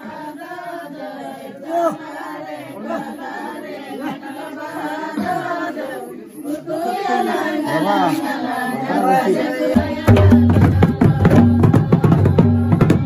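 Several voices singing and calling over one another. About ten seconds in, loud, fast drumming starts suddenly.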